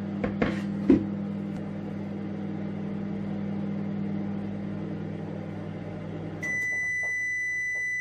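Sharp microwave oven running with a steady hum, with two brief knocks in the first second. About six and a half seconds in, one long steady beep sounds for about two seconds: the end-of-cooking signal as the timer reaches zero.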